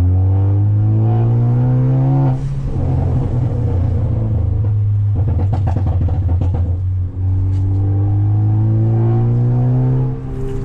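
Straight-piped, turbocharged Ford Focus ST engine and exhaust pulling hard with rising revs, cut off suddenly about two seconds in by a gear change. It then runs rough with a rapid run of pops and crackles from the tuned overrun through the middle. It climbs again from about seven seconds to another shift near the end.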